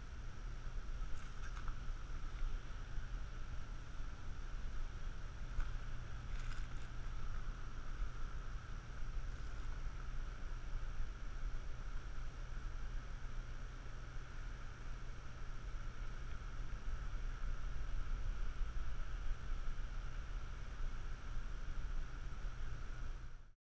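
Outdoor ambience: a steady low rumble of wind on the microphone under a faint hiss, with a couple of faint ticks. It cuts off suddenly near the end.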